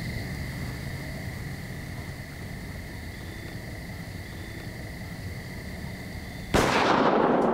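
Insects trilling steadily on one high note at dusk. Near the end a single loud muzzleloader shot cracks out suddenly and rolls away in a long echo.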